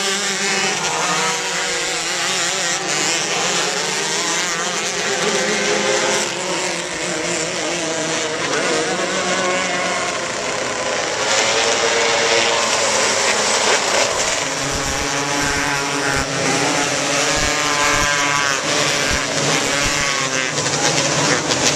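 Several small winged sprint cars racing at once, their engines revving up and down in pitch as they run through the turns and down the straights, the sounds of different cars overlapping.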